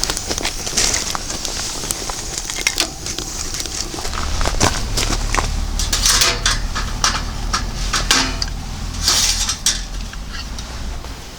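Dishes and utensils clinking and clattering in irregular clicks, with bursts of crackling hiss and a low hum underneath from about four seconds in.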